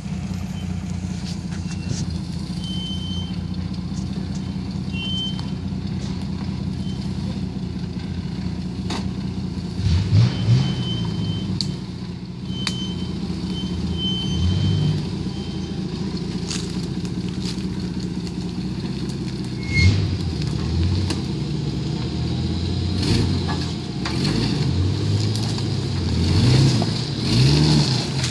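Jeep Cherokee XJ engine running at low revs as it crawls over rocks through a creek bed, the revs rising and falling briefly several times: about ten seconds in, around twenty seconds, and repeatedly near the end. Scattered clicks and knocks come through as the Jeep works over the rocks and brush.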